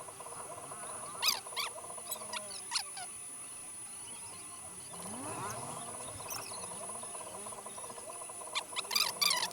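Soldering iron working flux across a phone motherboard's CPU pad: a faint sizzle with a few sharp crackles, one about a second in, another near three seconds, and a cluster near the end, over a steady high-pitched whine.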